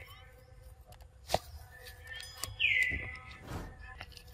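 A bird call: one high whistle sliding down in pitch about two and a half seconds in. A sharp click comes just over a second in.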